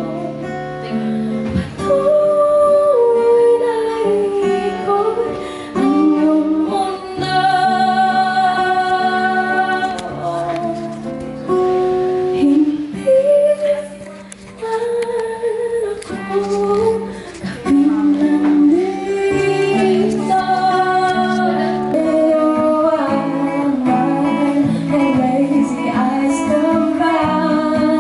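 A woman singing with her own acoustic guitar accompaniment, in long held notes that slide between pitches.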